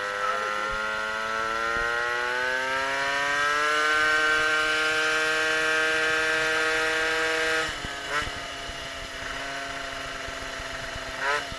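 Tuned two-stroke MBK 51 moped engine (Doppler ER1) under throttle, rising in pitch for about four seconds and then holding a steady high note. About three-quarters of the way in the throttle is shut and the revs drop, with two short blips of revs afterwards.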